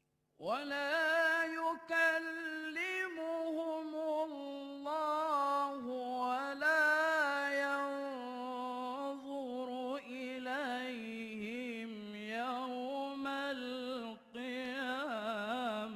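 A male qari reciting the Quran in the melodic, ornamented tilawah style, into a microphone. He starts about half a second in and sustains long, wavering held notes. There is a brief breath near the end, and the line sinks lower in pitch as it goes.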